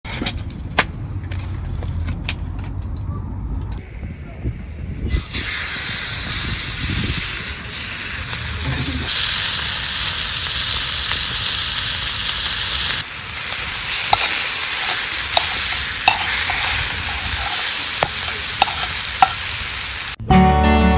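Steak sizzling over a campfire: a few small clicks and low rumble at first, then a loud, steady sizzle from about five seconds in. It cuts off suddenly near the end, giving way to acoustic guitar music.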